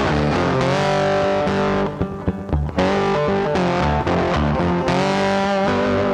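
Background music led by electric guitar, with notes that slide up and down. It thins out briefly about two seconds in.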